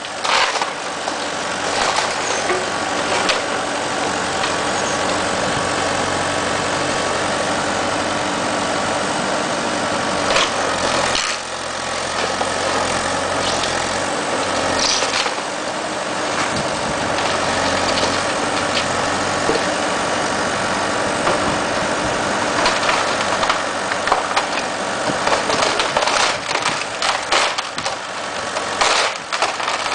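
Heavy machinery tearing down a house: an engine running steadily under load, with scattered crunching and cracking of breaking building material that comes more often near the end.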